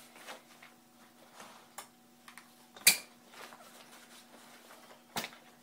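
Canopy fabric and plastic poles of a baby rocker being handled and fitted together, with a sharp plastic click about three seconds in and a smaller click a little after five seconds.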